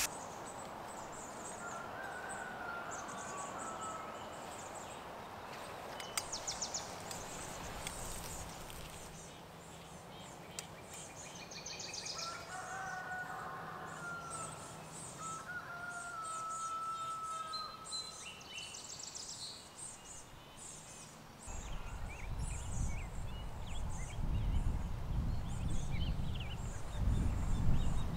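Birds calling and chirping, with a few longer held calls around the middle. From about three quarters of the way through, a loud low rumble joins in.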